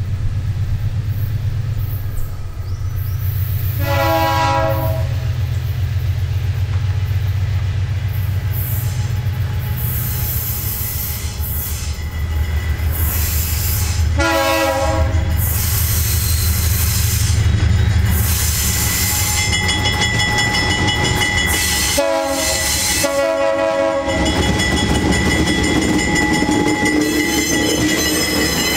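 Diesel locomotives of a freight train running with a steady low drone, sounding the horn for the level crossing: one blast about four seconds in, another about ten seconds later, and a quick pair near the end. Over the last third, thin high steady squealing comes in over the rumble of the passing wagons.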